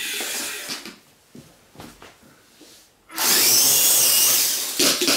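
Twister 2 electric R/C helicopter throttled up hard for take-off. About three seconds in its motor starts suddenly: a loud, high whine that rises and dips with the throttle over the rush of the spinning rotor, easing off near the end. Before it, a few light knocks.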